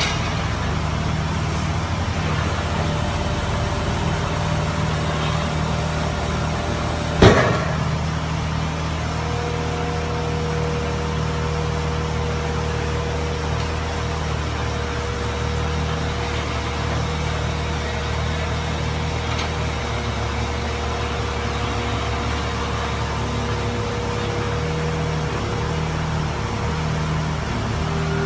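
Front-opening extrusion press running on its trial run: a steady machine hum, a single sharp clank about seven seconds in, then a steady whine that joins a couple of seconds later and holds.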